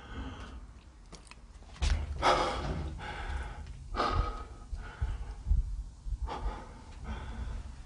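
A person's breathing close to the microphone: a few breathy puffs, roughly one every two seconds, over low rumbling handling noise.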